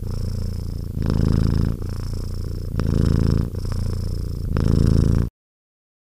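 Black Bengal cat purring up close while its belly is stroked, the purr growing louder and softer in turn with its breathing. It cuts off suddenly about five seconds in.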